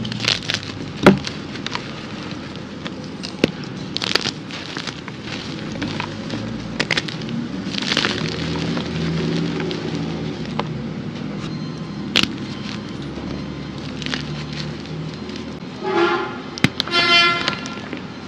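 Hands crushing and crumbling red-dyed reformed gym chalk blocks and white chalk chunks: a crunchy, powdery crumble with several sharp snaps as pieces break. Near the end, two short pitched sounds are heard.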